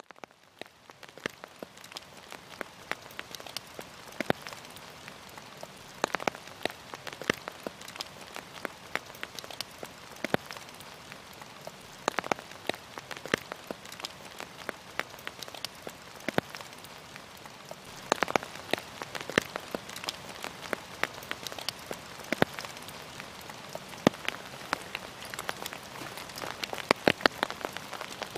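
Rain falling: a steady hiss with many separate drops striking close by. It fades in from silence at the start.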